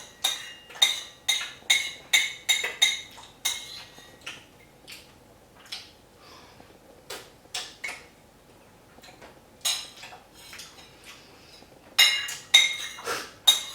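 Repeated sharp clinks and taps of hard objects with a slight ring, in quick runs near the start and again near the end, sparser in the middle.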